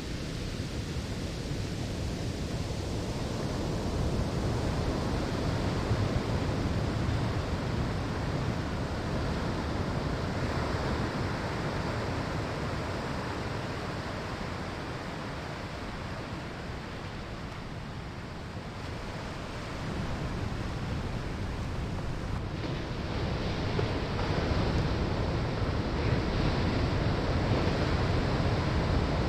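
Surf breaking and washing on a sandy shore: a continuous rushing hiss that swells with the incoming waves about 4 seconds in and again after about 20 seconds, easing in between.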